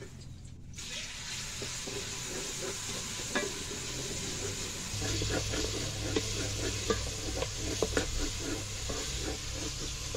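Chopped tomatoes sizzling in hot oil in a metal cooking pot, the sizzle starting suddenly about a second in. A spoon stirs and scrapes against the pot, its clicks and scrapes coming more often in the second half.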